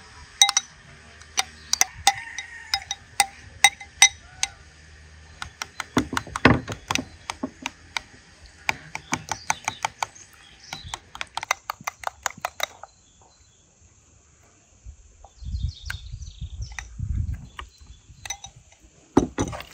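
Metal spoon clinking and scraping against a glass bowl while stirring a marinade, many sharp ringing taps over the first dozen seconds. After a short pause, soft wet squelches as the thick marinade is spooned over raw meat.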